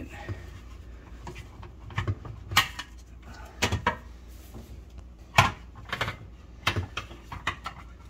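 Plastic parts of a dishwasher's lower spray arm and filter assembly clicking and knocking against each other and the stainless tub as they are handled and set back in place. The knocks are irregular and sharp, the loudest about five and a half seconds in.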